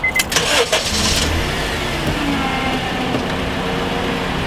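Car's warning chime beeping quickly a few times, then the engine cranks and starts about a second in and settles into an idle, its revs dropping.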